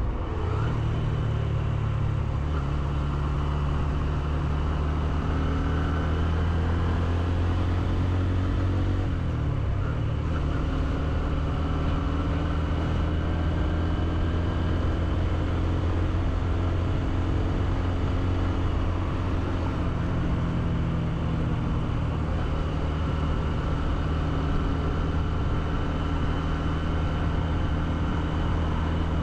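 Honda CB125F's 125cc single-cylinder engine running under way. Its note dips briefly and climbs back at the start and again about nine seconds in, then holds steady.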